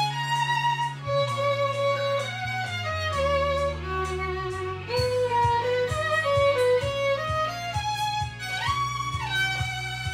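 Violin playing a pop ballad melody with vibrato over a recorded backing track of sustained bass notes, with regular percussive hits coming in about halfway.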